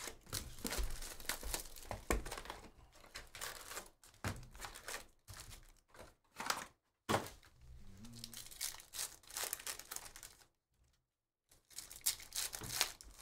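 A cardboard hobby box being opened and its foil trading-card packs handled, rustling and crinkling. After a brief pause near the end, a foil pack is torn open with sharp crackles.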